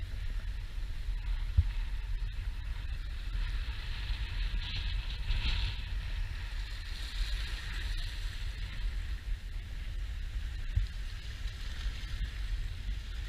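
Wind rumbling on the camera microphone over a steady hiss of small waves washing against the seawall's rocky edge; the hiss swells briefly about five seconds in.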